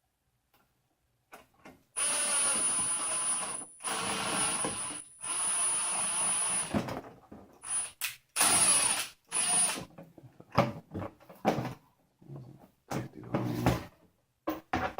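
Power screwdriver running in several bursts to drive a mounting screw, with a thin high whine over its motor noise: a long run broken by two short pauses, then a few shorter runs. Scattered clicks and knocks of parts being handled follow.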